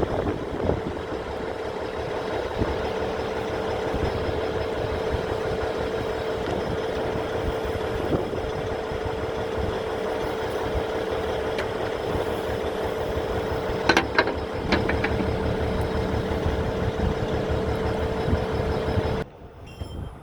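Diesel engine idling steadily, with a constant hum over it. A few sharp knocks come about fourteen seconds in, and the sound cuts off suddenly just before the end.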